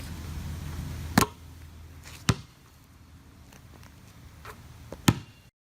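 Three sharp knocks: two about a second apart, then a third about three seconds later, over a faint low hum. The sound cuts off abruptly near the end.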